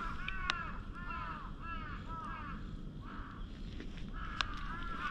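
Crow cawing in a run of short, arching calls, several a second, pausing briefly a little after the middle and then starting again; a light click or two from handling.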